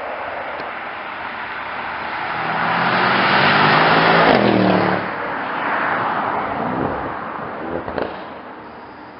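Mercedes-AMG E 63 S 4Matic+ 4.0-litre twin-turbo V8 accelerating hard past. The engine note climbs to a loud peak as it goes by about four seconds in, then drops in pitch and swells again as it pulls away. A few sharp exhaust cracks come near the end before the sound fades.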